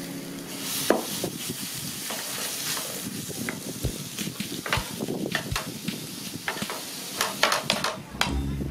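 Minced meat sizzling in a non-stick frying pan as a wooden spatula stirs and breaks it up, scraping and clicking against the pan. There are several quick sharp taps near the end.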